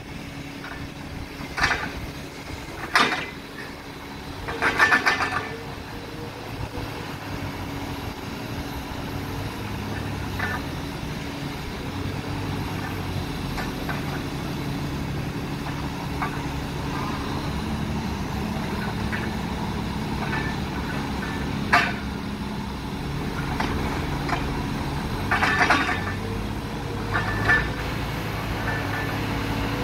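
Compact wheel loader's diesel engine running steadily, its note shifting as it works. Several metal clanks and rattling scrapes from the loader's bucket gear against the ground stand out, the loudest about three and five seconds in and again near the end.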